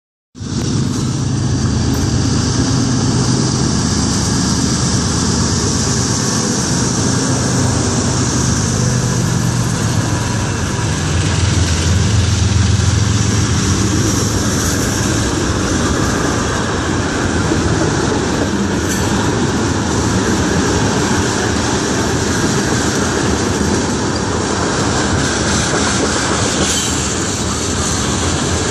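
Canadian National freight train passing at close range: diesel locomotives, then freight cars rolling by with steady wheel and rail noise. It is loudest and deepest about halfway through.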